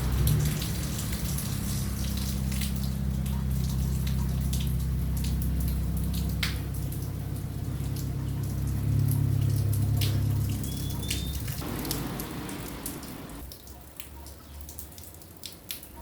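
Light rain falling, with many separate drops and drips striking hard surfaces. A low vehicle engine rumble runs underneath and fades away about twelve seconds in.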